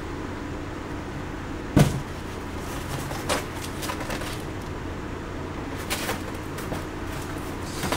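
Sneakers and shoeboxes being handled and set down: one sharp knock about two seconds in, then a few lighter knocks and rustles, over a steady low room hum.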